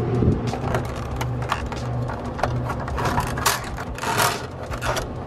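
Clicking and rattling from handling the open soda vending machine's metal can racks and money, over a steady low hum, with two louder rustling bursts about three and a half and four seconds in.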